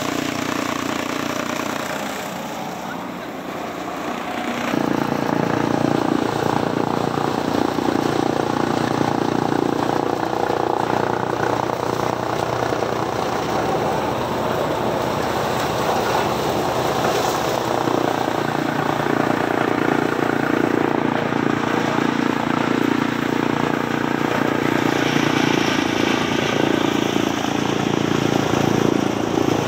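Maize chaff cutter running steadily, chopping whole maize stalks and blowing the chopped fodder up its chute into a trailer. The sound dips a few seconds in, then runs louder and steady.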